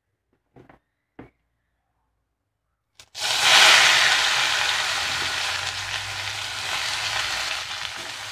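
Pumpkin shoots and leaves dropped into hot oil in an iron kadai: a sudden loud sizzle starts about three seconds in, loudest at first, then settles to a steady frying sizzle. Before it come two brief faint knocks.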